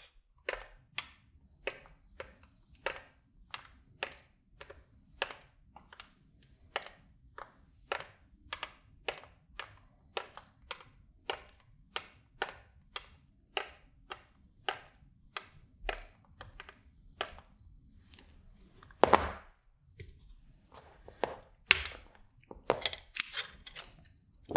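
Flush side cutters snipping the excess component leads off the back of a soldered circuit board, a sharp click with each cut, about one every half second. A louder knock comes about three-quarters of the way through.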